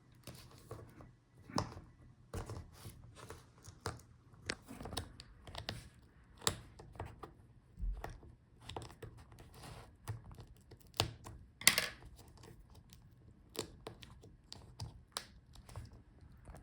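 The plastic front bezel of an HP ZBook Firefly G9's display being pried at along its edge: irregular clicks, creaks and crackles of plastic and adhesive, with a longer, louder crackle near the end. The bezel is glued and held by clips, so it resists coming off.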